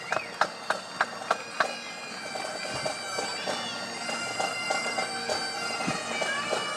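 Pipe band playing Great Highland bagpipes: sharp, regular beats about three a second for the first second and a half, then the pipes' steady sustained notes over their drones.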